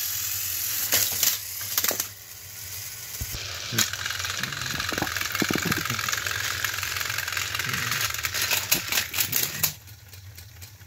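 Battery-powered toy train engines whirring and rattling on plastic track, with scattered clicks and knocks, as two motorized engines push against each other. The motor noise stops shortly before the end.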